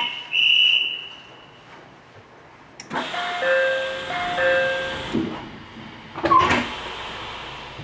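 Commuter train door chime sounding a two-note pattern twice over a hiss, followed by a heavy thump about six seconds in as the doors shut.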